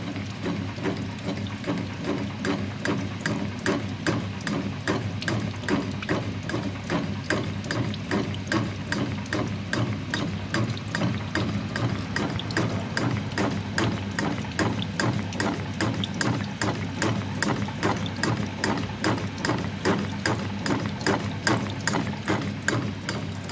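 A keyway being broached into a pulley bore on a Goodway 1640 lathe: the cutter strokes in and out at about two cuts a second, each a sharp scraping stroke, over a steady machine hum.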